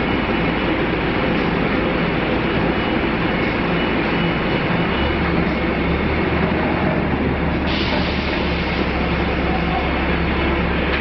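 Steady running noise of a vehicle or large machine, a continuous even noise with a low hum that grows stronger about five seconds in.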